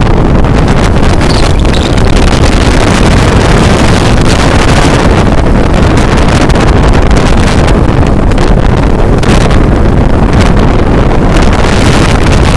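Loud, steady wind buffeting on the microphone of a phone carried on a moving motorbike, with the rush of the ride underneath.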